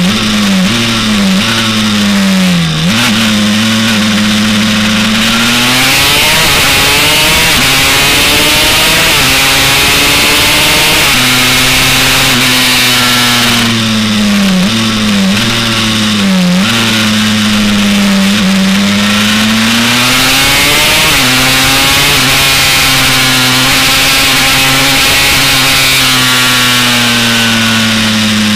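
Honda CR race bike's 327cc TRX 250R two-stroke single-cylinder engine at high revs on track, with its pitch rising and falling with throttle and gear changes. It drops sharply in a few quick steps twice, once near the start and once about halfway through, then climbs back under throttle. Steady wind rush runs underneath.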